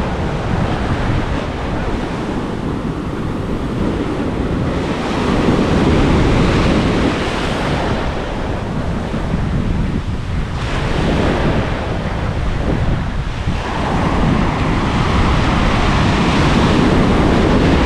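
Strong wind buffeting the microphone over the wash of breaking ocean surf, a steady rushing noise with a deep rumble that swells louder a couple of times.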